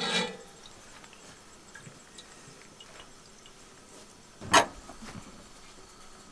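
A metal cooking utensil knocks sharply once on a wooden cutting board about four and a half seconds in, with a lighter knock just after. The rest is a quiet background with a few faint ticks.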